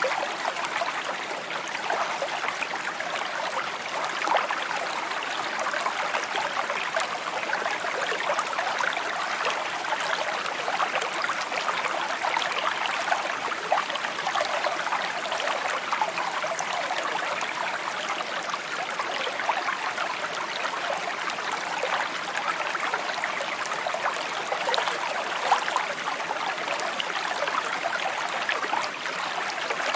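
Shallow stream babbling and trickling over stones, a steady burble of small splashes and gurgles.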